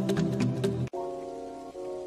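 Background music with a steady beat that cuts off abruptly about a second in, giving way to softer sustained chords.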